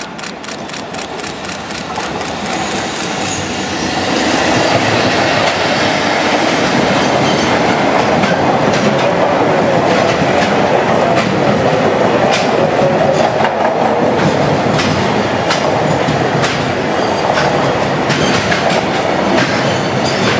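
Container freight train hauled by an EF65 electric locomotive passing close by, growing louder about four seconds in, then a steady rumble of wagons with the wheels clacking over rail joints.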